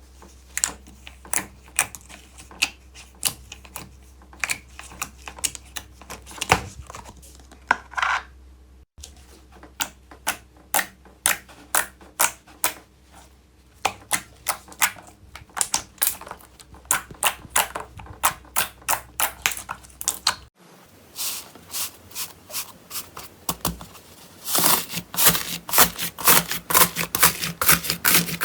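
Slime being squeezed and pressed by hand, making a run of sharp clicking, crackling pops, several a second. The sound breaks off and starts again twice, and near the end the pops come faster and louder.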